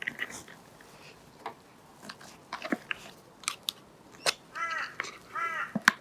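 Scattered light clicks and knocks from handling metal fork parts, then a crow cawing twice near the end.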